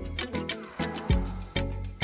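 Upbeat background music with a steady drum beat and bass line.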